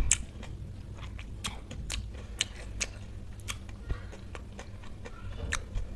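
Close-miked chewing with the mouth closed: scattered small wet mouth clicks and smacks, roughly one or two a second, over a low steady hum.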